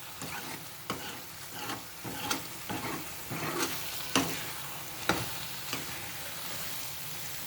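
Vegetable masala with green paste sizzling as it fries in oil in a pan, stirred with repeated scrapes against the pan. The oil is separating from the masala, the sign that it is almost cooked.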